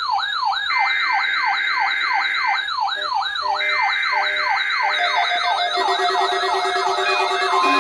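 Emergency alert test signal: an electronic siren-like tone sweeping up and down about three times a second, over two long bursts of screeching digital data in the style of a SAME header. In the last few seconds more beeps, steady tones and sliding tones pile in on top.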